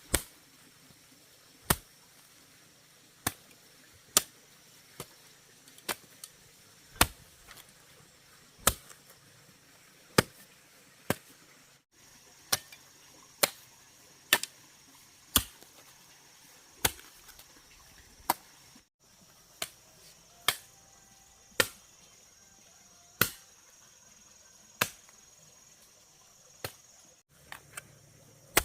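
Repeated chopping strikes of a hand tool, sharp single blows at a steady pace of roughly one every second and a half, over a faint steady drone of insects.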